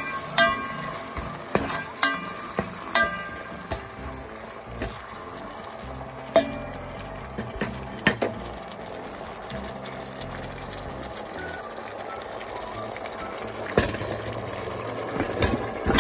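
Onion and garlic chili sauce sizzling in a nonstick pot, with a spatula stirring and knocking against the pot now and then, mostly in the first few seconds. Near the end there is a sharp knock and more clatter and sizzling as pieces of pork neck bone go into the pot.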